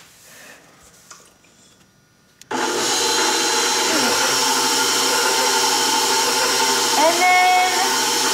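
Electric tilt-head stand mixer switched on about two and a half seconds in, its motor then running steadily at one speed as it beats egg whites with cream of tartar for icing.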